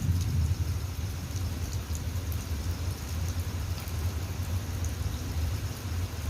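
Rain falling steadily, with scattered drops ticking, over a steady low rumble that is a little louder at the very start.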